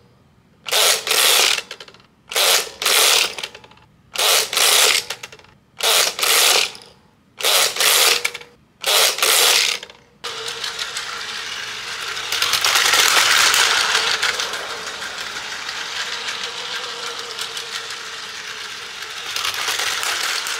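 Plastic gear mechanism of a Plarail toy terminal set, ratcheting in about eight short bursts roughly one a second. About halfway through it gives way to a steady whirr of a small motor and gears.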